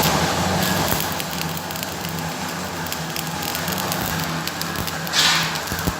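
Electric arc welding: a steady crackling sizzle from the arc, over a low steady hum, with a brief louder hiss about five seconds in.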